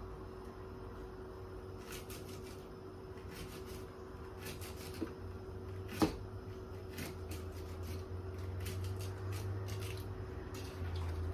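Kitchen knife slicing celery stalks on a cutting board: faint, irregular cuts and taps, with one sharper knock about six seconds in.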